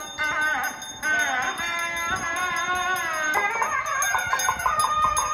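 Temple puja hand bell ringing rapidly and continuously over music with a gliding melody.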